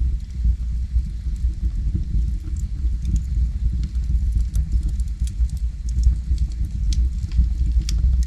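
Logs burning in a fireplace: a steady low rumble of the fire with many small, sharp crackles and pops scattered irregularly throughout.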